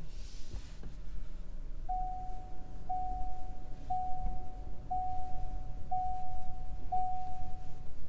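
A 2022 Ford Bronco Sport's in-cabin warning chime sounds six times, one tone a second, each starting sharply and fading, beginning about two seconds in. Under it is a low rumble of the SUV rolling slowly.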